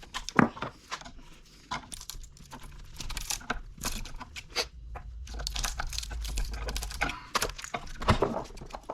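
Irregular clicks, scrapes and crunches of scrap electric-motor parts and wire being handled and pulled apart by hand, with a low hum in the middle.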